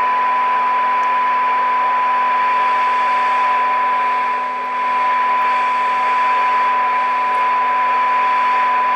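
Transistor radio's speaker giving out a steady test tone over hiss, the demodulated tone of a modulated 455 kHz IF signal, while an IF transformer core is turned to peak the IF alignment. The level dips briefly about halfway through.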